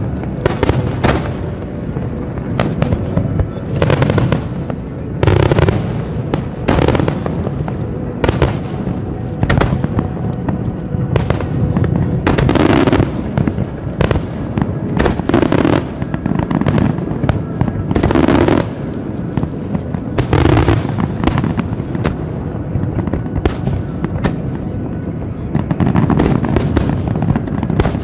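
Aerial firework shells bursting in quick succession, deep booms mixed with crackling, with scarcely a gap between bursts.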